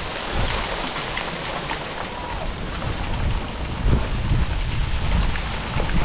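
Heavy rain falling on open gravel ground, a steady hiss full of many small drop ticks. From about four seconds in, a low rumble comes and goes underneath.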